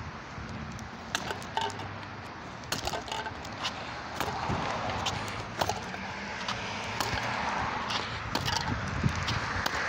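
Handling noise from a phone carried close against clothing: rustling and scraping with many scattered clicks and knocks, a little louder after about four seconds.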